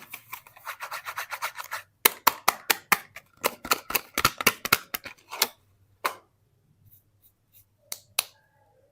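Soap packaging being opened by hand, crackling and snapping. A quick run of small crackles comes first, then a burst of sharper, louder snaps for a few seconds, thinning out to a few scattered clicks near the end.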